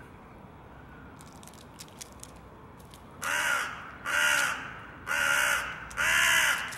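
Hooded crow cawing: four harsh caws about a second apart, starting about three seconds in.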